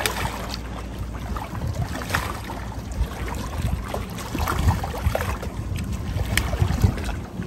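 Water splashing and churning irregularly as a large hooked shark thrashes at the surface beside a dock, over a low rumble of wind on the microphone.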